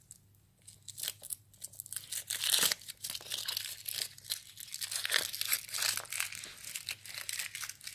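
Foil wrapper of a small Kinder Surprise chocolate egg being torn and crinkled off by hand: a rapid run of crackles and rustles that thickens about a second in and eases off near the end.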